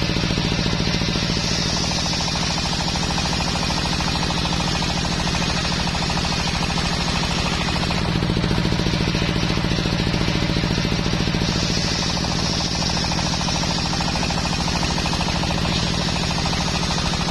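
Belt-driven table circular saw ripping teak planks lengthwise, its driving engine running with a fast, even knock under the hiss of the blade in the wood. The cutting noise eases for a few seconds in the middle as one plank clears the blade, then comes back as the next is fed in.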